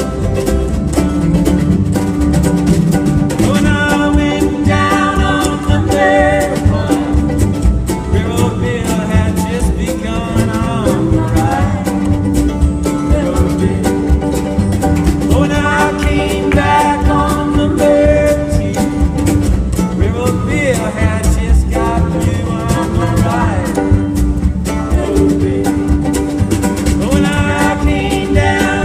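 Live acoustic band playing country-bluegrass style music, with guitar and pitched melodic lines that bend and slide over a steady accompaniment.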